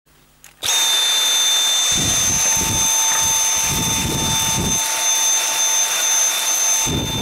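Handheld vacuum cleaner switched on about a second in and running steadily with a high motor whine, its brush head rubbing over the plastic TV back cover in three spells.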